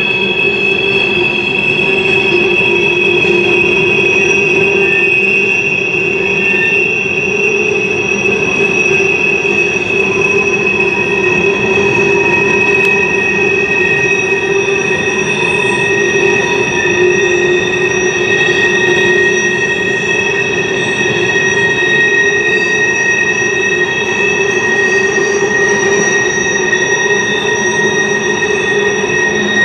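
Freight train of coal hopper cars rolling by, the steel wheel flanges squealing against the rail on a tight curve: several steady high squeal tones held over the rumble of the passing cars.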